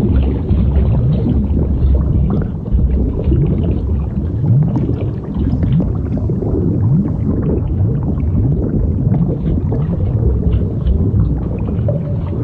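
Blueberry-inflation sound effect: a continuous low rumble full of short rising creaks and groans, the stretching and gurgling of a swelling body.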